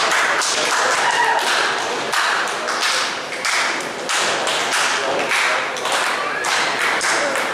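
Audience clapping in a steady rhythm, about two claps a second.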